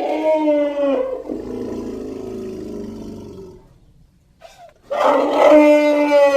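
Elephant calling twice: a loud, pitched call about a second long that trails into a quieter, lower call, then after a short pause a second loud call near the end.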